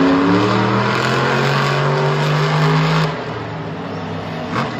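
Engines of vehicles spinning donuts on a speedway infield, held at high revs, loud. They drop off suddenly about three seconds in.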